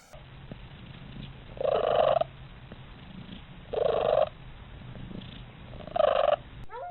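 A domestic cat purring steadily, broken by three louder sounds about two seconds apart, each lasting about half a second.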